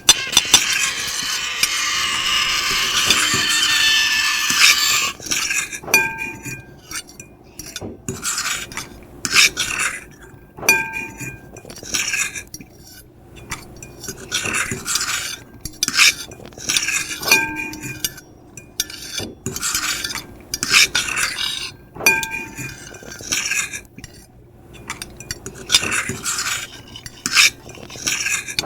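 Metal fork and knife scraping across a plate: a dense continuous scrape for about the first five seconds, then shorter scratching strokes and clinks every second or two, some leaving a brief ringing tone.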